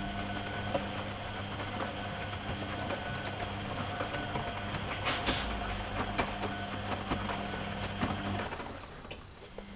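Privileg 370 S washing machine running: a steady motor hum with scattered clicks and knocks, a louder rushing stretch about halfway through, and the hum stopping briefly near the end.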